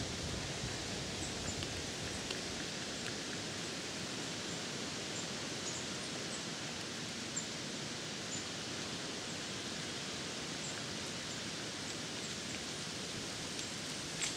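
Steady outdoor hiss of wind rustling through trees and dry leaves, with faint short high chirps every second or so.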